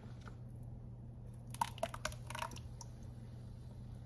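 Metal ladle scraping and clicking against an aluminium saucepan while thick cornmeal porridge is stirred, with a short run of sharp clicks about one and a half to two and a half seconds in. A steady low hum runs underneath.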